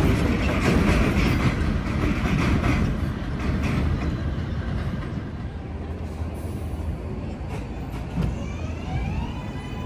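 Flushing Line subway train running on the track with rumble and wheel clatter, fading over several seconds. About eight seconds in, an electric traction-motor whine starts and rises in pitch, then holds steady as a train picks up speed.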